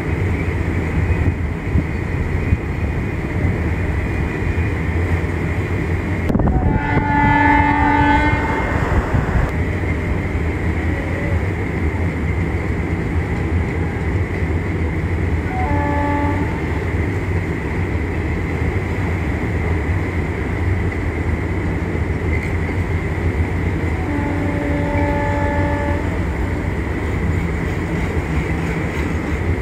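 Train rumbling steadily with an electric locomotive's horn blown several times: a long blast about six seconds in, a short toot near the middle, another long blast about three-quarters through, and one more at the very end.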